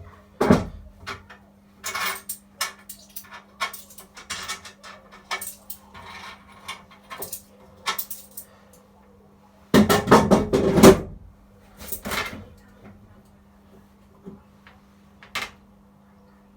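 Coins clinking and rattling as they are handled and fed into a coin-operated kiddie ride, a string of sharp metallic clicks with a longer, louder clatter about ten seconds in. A steady low electrical hum runs underneath.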